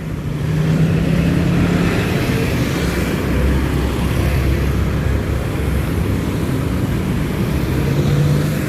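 Street traffic: motor vehicle engines running and passing close by, a steady low rumble with engine hum that rises and fades as vehicles go past.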